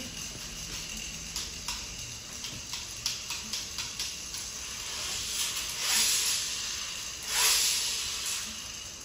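Several small toy spinning tops spinning on a wooden floor: a steady hiss with scattered sharp clicks, and two louder swells of hiss in the second half.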